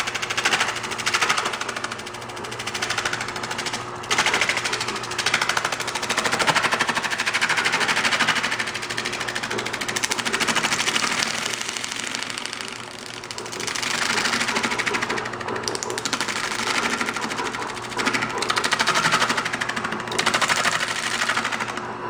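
A lathe spinning a rough, out-of-round insulation foam disc while a spindle gouge cuts into it: a rapid rattling chatter as the tool strikes the uneven high spots and tears off chunks. The cutting comes in passes, easing briefly a few times.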